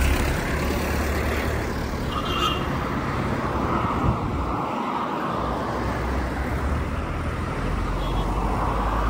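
Street traffic: cars driving past along the road, a steady rush of tyres and engines with a low rumble.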